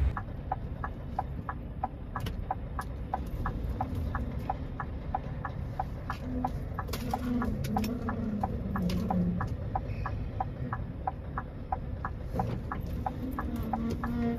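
Lorry's reversing warning beeping rapidly and evenly, about four short pips a second, over the low rumble of the diesel engine as the lorry backs up slowly to take another swing at a hairpin bend.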